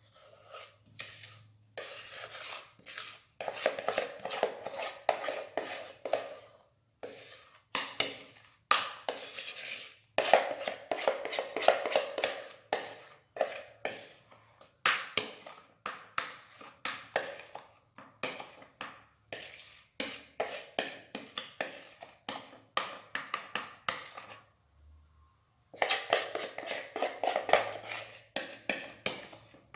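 A utensil clinking and scraping against a mixing bowl and metal cake pan while chocolate cake batter is emptied into the pan. The sound comes as quick runs of sharp strokes, each run lasting a few seconds, with short pauses between them.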